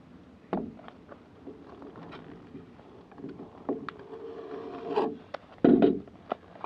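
Padded kraft-paper mailer being torn open and handled: crinkling, rustling and scraping paper, with the loudest burst of crinkling near the end.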